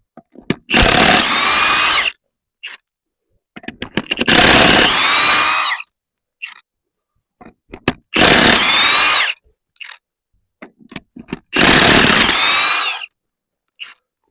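Impact wrench run in four bursts of one to two seconds each, loosening the wheel's lug nuts, with small clicks between the bursts.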